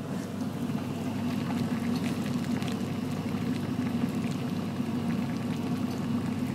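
Water at a rolling boil in a stainless steel pot: steady bubbling with many small crackling pops.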